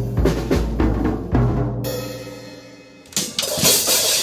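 A drum kit being played: quick bass-drum and tom strokes in the first two seconds, a short lull as they ring down, then a few more hits and a cymbal crash near the end.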